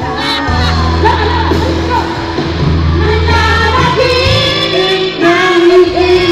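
Live pop-rock band playing, with women singing the lead melody over held bass notes.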